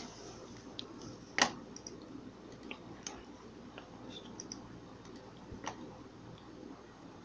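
A few faint, sharp computer mouse clicks over quiet room tone, the loudest about one and a half seconds in.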